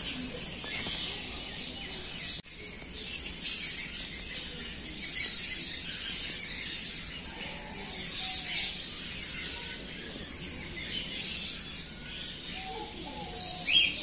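Many small birds chirping and twittering in a busy, continuous chorus, briefly cut off about two and a half seconds in.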